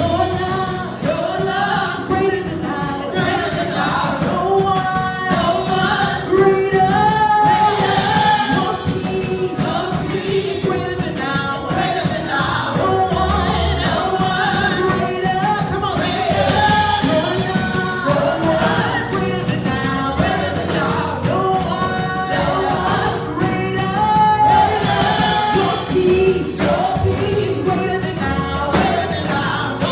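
Gospel praise song: voices singing a melody together over a full band with drums.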